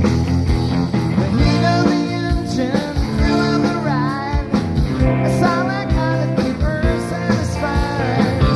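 Live rock band playing: drums keep a steady beat under a lead line that bends up and down in pitch.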